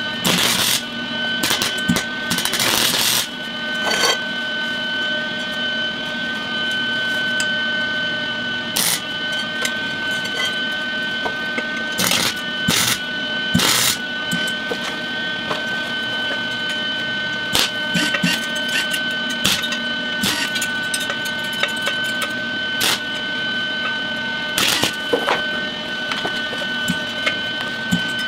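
Wire-feed welder welding a steel wheel rim: the arc crackles and buzzes in short bursts, a dozen or so, over a steady whine from the welding machine.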